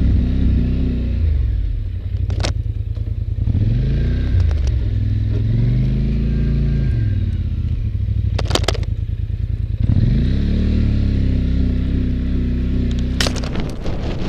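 Polaris Sportsman 850 ATV's twin-cylinder engine running under load, revving up and easing off several times as it works a snow plow. Three sharp clanks come through, spread across the stretch.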